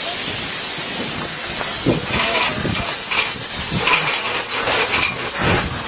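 Loud, steady hiss of gas escaping from a ruptured gas line. Faint voices come through it from about two seconds in.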